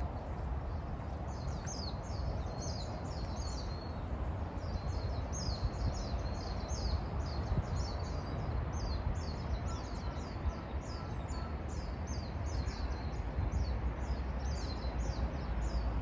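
Small songbirds chirping busily in the trees: a continuous stream of short, high chirps, several a second, over a steady low rumble.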